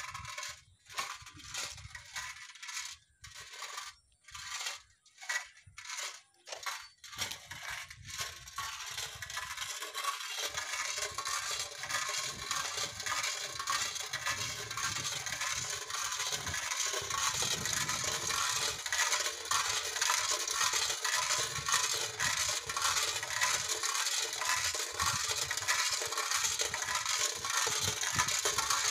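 Wind-driven bird- and rat-scaring rattle (giraka) made from a metal can, clattering as its vane spins in the wind: scattered clacks at first, then from about eight seconds in a fast continuous rattle that grows louder.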